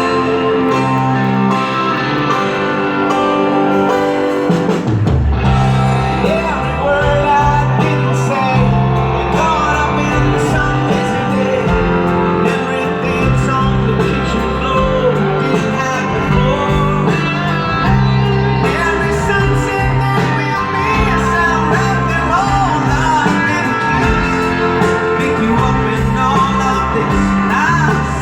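Live rock band playing a ballad, guitar with singing, the bass end of the band coming in strongly about five seconds in.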